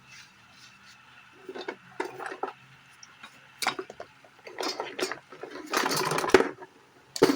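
Irregular knocks and clatter of hard objects being handled, with a longer scraping rustle about six seconds in and a sharp knock near the end.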